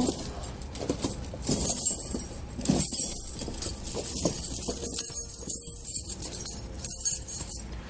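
Glacier steel twist-link tire chains jingling and clinking as they are draped over a tire and pulled straight by hand, in irregular jangles.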